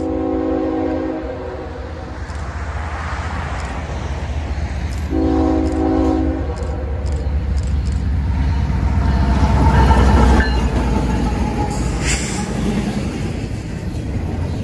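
Freight train locomotive's chord air horn sounding two blasts, one at the start and one about five seconds later, over the low rumble of the train's diesel engines and wheels, which grows louder as it approaches.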